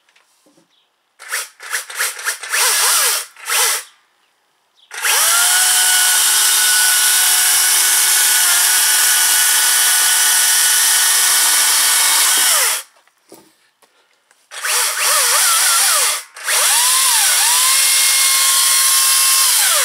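Makita DUC400 36 V (two 18 V batteries) brushless cordless chainsaw: a few quick trigger blips, then the motor and chain run at a steady pitch for about eight seconds, stop, and run again for about five seconds, the pitch dipping briefly soon after the second start.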